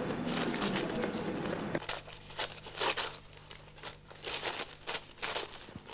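Wrapping paper rustling and crumpling as a gift is unwrapped, in irregular short rustles about twice a second.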